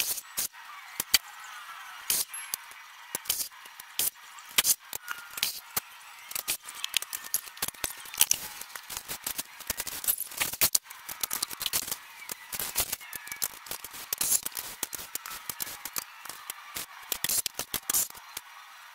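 Irregular crackling, snapping and crinkling of vinyl wrap film and its paper backing as the backing is peeled away and the film is worked down by hand onto a truck door, with many sharp clicks at uneven intervals.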